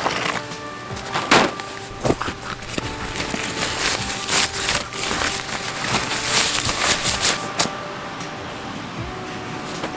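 Quiet background music with held notes, over crisp rustling and crinkling of nylon tent fabric as it is pulled out of its stuff sack. The rustling comes in repeated loud bursts and stops about two seconds before the end.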